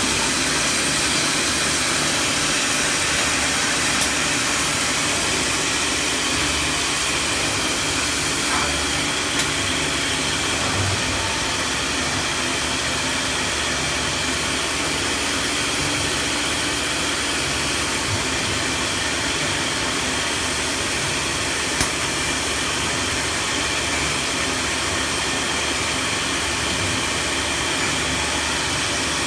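Wood CNC router running: a steady rushing machine noise with a constant high whine, broken by a few short sharp clicks, one about four seconds in, one near ten seconds and one past twenty seconds.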